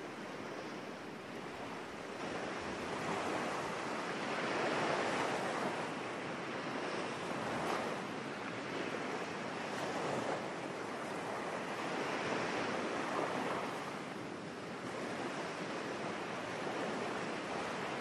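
Sea surf breaking on a sandy beach: a steady rushing wash that swells and eases every few seconds.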